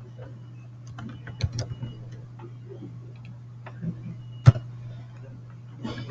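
Computer keyboard keystrokes and mouse clicks: a quick run of key taps about a second in, a single louder click about four and a half seconds in, and a few more taps near the end, over a steady low hum.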